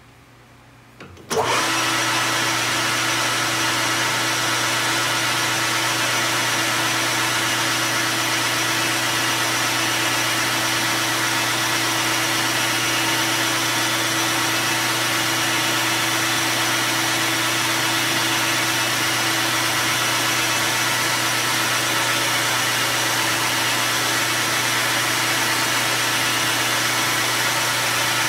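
ANMEC BL330E metal lathe switched on about a second in and then running steadily, with a loud even hiss over a steady hum.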